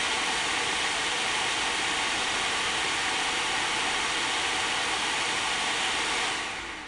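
The stock cooler fans of two AMD Radeon HD 6870 graphics cards running at 75% speed: a loud, steady rush of air, too noisy for their owner, which falls away near the end as the fans slow.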